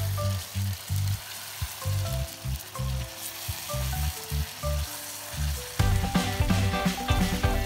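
Chicken pieces sizzling in a hot cast-iron pot as they are stirred with a spatula. Background music with a pulsing bass runs alongside and gets louder about six seconds in.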